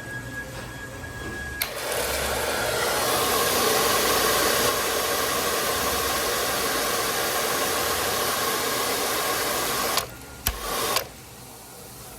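World Dryer SLIMdri hand dryer starting sharply about a second and a half in and blowing steadily for about eight seconds, then cutting off, with a short half-second blast right after.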